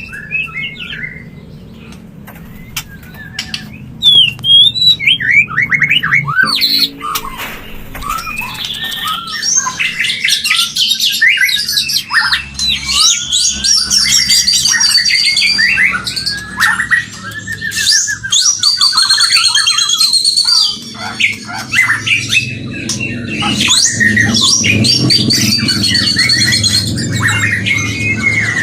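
White-rumped shama (murai batu) in breeding condition singing a loud, varied song of whistles, chirps and rapid repeated notes. The song starts about four seconds in, after a quieter opening.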